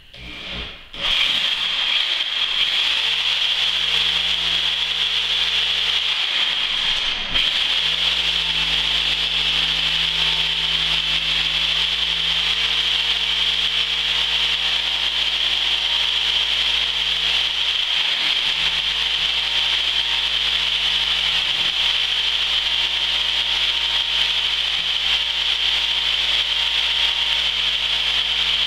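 Corded reciprocating saw with a diamond-grit blade cutting through the mortar joints of a glass block window. It starts about a second in and runs steadily.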